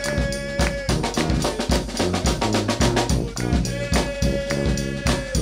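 New Orleans brass band playing: bass drum and snare keep a steady beat under a low sousaphone bass line, with a long held high note about a second in and again near the end.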